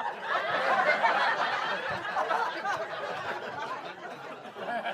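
Comedy audience laughing together, loudest in the first second or two and dying away toward the end.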